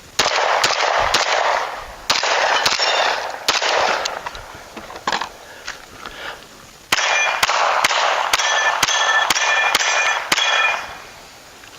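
Glock 17 9mm pistol firing a long string of fast shots at steel targets, with the plates clanging and ringing as they are hit, densest in the second half and stopping shortly before the end.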